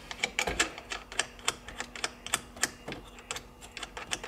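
Quick, irregular light clicking and tapping of small metal parts as a hand works behind a classic Mini's dashboard, spinning wing nuts off the securing-plate studs, with a dull knock about half a second in.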